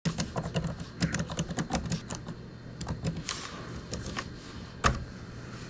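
Keys being typed on a computer keyboard: a quick run of clicks for about two seconds, then a few slower keystrokes and one louder single click near the end.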